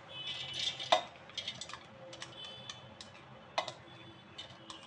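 Sprouts falling from a glass bowl into a stainless-steel mixer-grinder jar, with a spatula scraping the bowl: scattered light clicks and rattles, the sharpest knock about a second in.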